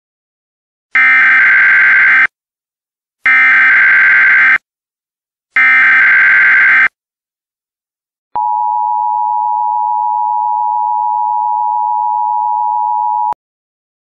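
Emergency Alert System tones: three harsh, buzzing digital data bursts (the SAME header), each a little over a second long, followed by the steady two-tone EAS attention signal held for about five seconds before it cuts off.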